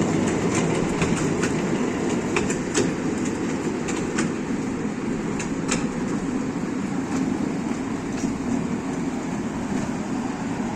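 A ride-on toy train running along its track, with a steady rumble and scattered, irregular clicks and rattles from the carriages.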